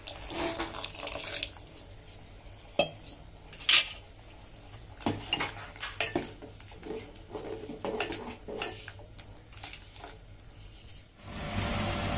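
Paste poured into a stainless steel pot of simmering potato kurma, then a metal ladle stirring it, clinking and scraping against the pot's sides in a run of sharp knocks. A steady noise takes over near the end.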